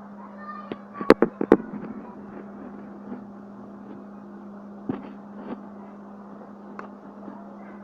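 Woodpecker pecking with sharp, irregular knocks: a quick burst of about five strikes just after a second in, then single pecks now and then.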